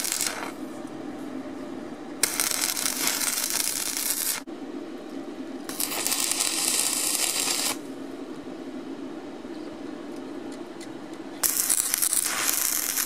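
Stick (SMAW) arc welding: the electrode arc crackles and sizzles in four short welds of one to two seconds each as brackets are tacked onto steel plate, the first ending just after the start and the last starting near the end. A steady low hum runs underneath between the welds.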